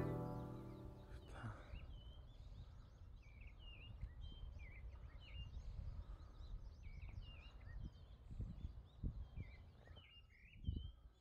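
Faint birdsong: many short chirps and calls, scattered throughout, over a low rumbling background with a few soft low thumps near the end. A guitar chord from the music rings out and fades in the first second or so.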